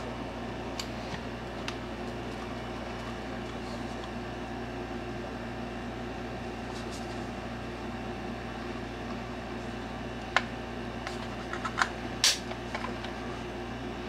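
Sharp plastic clicks and snaps as the battery cover of a wireless mouse is pried off, a cluster of them late on with the loudest near the end, over a steady fan-like hum.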